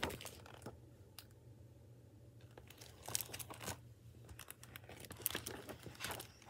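Faint crinkling and rustling of a hardback picture book in a clear plastic library jacket being handled and its page turned. The crinkles come as a few short clusters, about three seconds in and again near the end.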